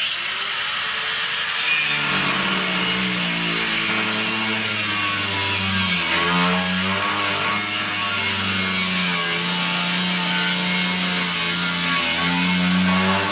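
An old die grinder with a 4.5-inch metal cutting wheel starts abruptly and whines up to speed, then cuts into the rim of a porcelain-enamelled cast iron bathtub. It makes a loud, steady abrasive grinding, and its motor note shifts as the wheel is pressed into the iron.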